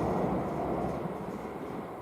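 Meitetsu Nagoya Main Line electric train running over the tracks and moving away, its rumble fading steadily.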